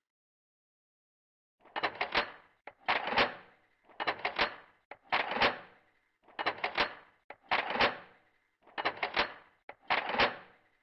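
Lever-action rifle being cycled over and over: the lever swung open and shut, each stroke a quick cluster of metallic clicks and clacks, about one stroke a second, starting about a second and a half in.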